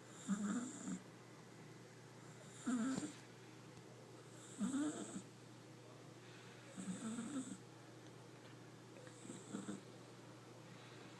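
Domestic cat snoring in its sleep: five short snores, one about every two seconds, the last ones a little softer.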